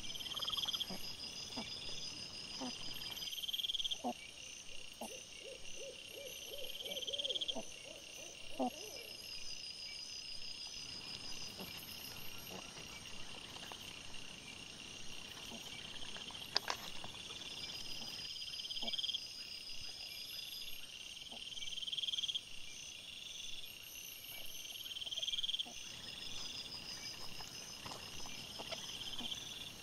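A steady chorus of night insects chirping in phrases that repeat about every two seconds. Scattered short clicks and rustles come from wild boar rooting and feeding, with a brief run of rapid low pulsing calls about six seconds in and a sharp knock near the middle.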